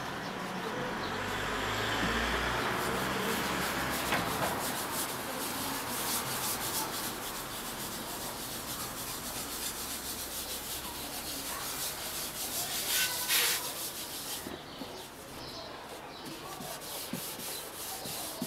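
A cloth pad rubbing carnauba paste wax, loading it from the tin and working it over a bare wooden board: a steady scrubbing noise that grows briefly louder about two-thirds of the way through.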